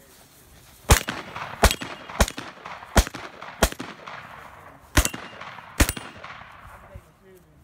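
Shotgun firing seven shots in quick succession, roughly two-thirds of a second apart, with a longer pause before the last two. Each shot leaves a short echoing tail.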